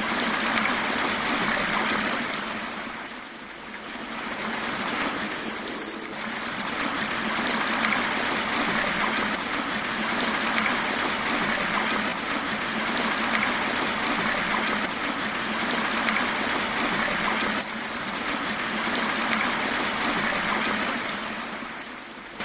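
Steady rushing of a stream pouring over rocks and small cascades, a loud even wash of water. Faint high chirping recurs every few seconds above it.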